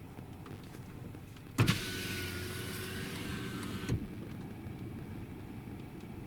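A car's electric power window motor running for about two seconds. It starts abruptly about a second and a half in and stops with a small knock, over a low steady rumble.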